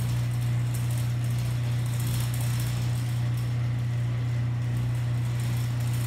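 Genie ProMax 1/3 HP chain-drive garage door opener running with the door disconnected: a steady, fairly quiet motor hum as it drives the chain and trolley along the rail.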